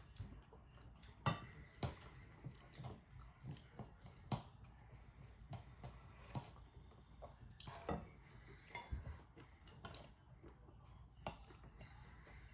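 Faint, irregular clinks and taps of spoons against bowls and dishes during a meal, a few sharper knocks among them.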